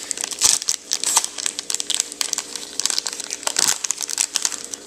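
Trading-card rack pack wrapper crinkling and crackling irregularly as it is handled and the cards are worked out of it.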